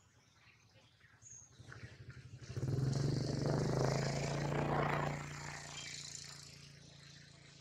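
A passing motor vehicle's engine: a steady engine hum swells up about two and a half seconds in, holds for a couple of seconds, then fades away.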